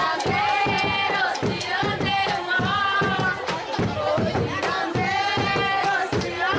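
Boi-bumbá style song for the boi dance: voices singing a melody over a steady, fast drumbeat, with crowd noise underneath.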